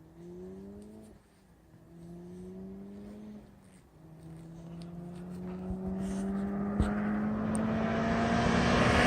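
A high-performance vehicle engine accelerating hard through the gears as it approaches at speed. Each gear's rising note is cut by a shift, about a second in and again about three and a half seconds in. The last, longest pull grows steadily louder as the vehicle nears.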